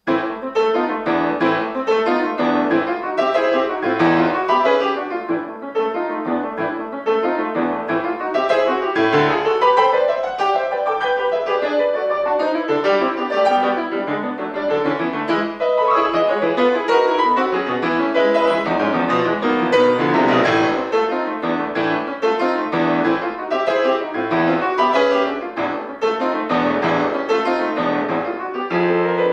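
Solo classical piano on a concert grand, played loud and fast with dense passagework and no pause. It starts abruptly out of silence.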